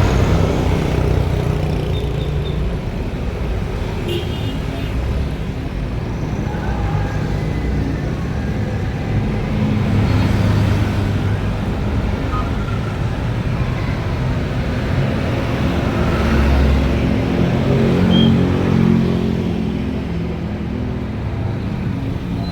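Bus diesel engines running amid road traffic, a steady low rumble that swells louder twice.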